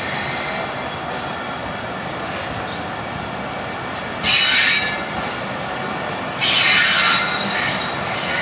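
Pakistan Railways passenger coaches rolling past slowly as the train pulls out, a steady rumble of wheels on rail. Two loud high-pitched wheel squeals cut in, the first about four seconds in for under a second, the second about two seconds later for about a second.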